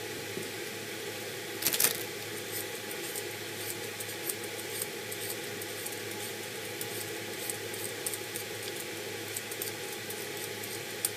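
Potato being peeled with a hand-held vegetable peeler: light, irregular scraping and ticking strokes, with a louder knock about two seconds in. A steady hum runs underneath.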